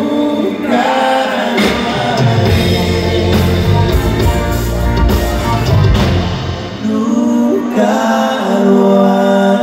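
Live grupera band music with singing, recorded from the audience. About seven seconds in, the bass and drums drop out, leaving long held notes.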